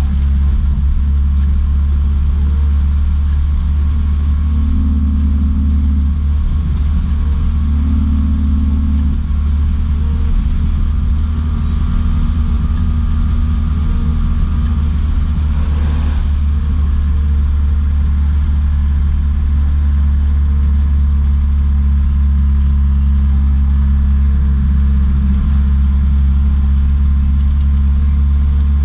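JAC truck's engine running steadily while under way, a deep, even drone with no change in speed.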